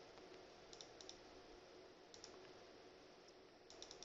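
A few faint computer mouse clicks, spaced a second or so apart, over a low steady hiss.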